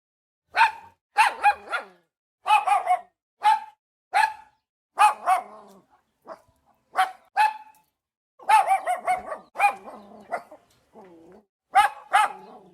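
A dog barking repeatedly in short runs of one to three high-pitched barks, with brief silent pauses between the runs.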